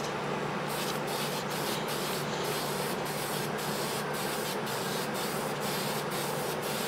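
Aerosol spray-paint can hissing in short, rapid bursts, about three a second, starting a moment in.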